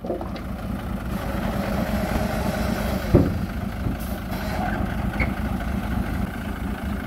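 Diesel dump truck engine running steadily at idle while the raised tipper bed is lowered. One sharp clunk sounds about three seconds in as the bed comes down onto the frame.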